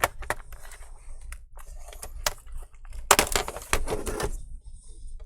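Plastic clicks and knocks from a laptop's bottom cover being handled and lifted away, with a dense run of snapping clicks about three seconds in that lasts about a second.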